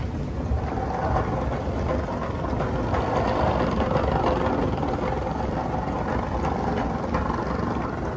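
Steady hum and low rumble of a busy airport terminal concourse, heard on a handheld phone while walking.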